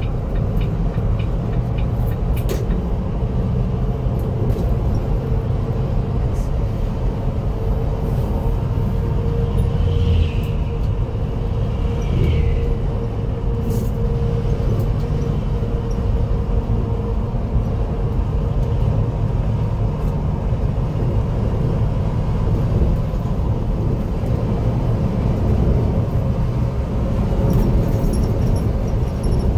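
Volvo B11R coach's 11-litre six-cylinder diesel and road noise heard from inside the cabin while it drives: a steady low rumble, with a faint steady whine through the middle and two short chirps about ten and twelve seconds in.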